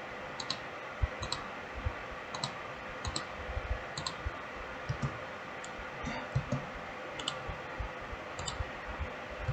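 Computer mouse clicking: a string of light, sharp clicks about once a second, many in quick pairs, over faint room hiss.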